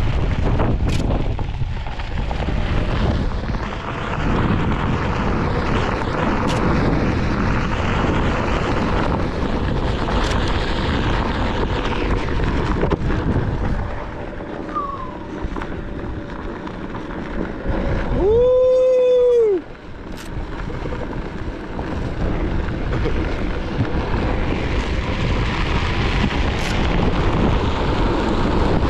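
Wind buffeting the microphone over the rolling of a Onewheel GT-S tyre on loose dirt. About two-thirds through, a short, loud tone rises and falls in pitch.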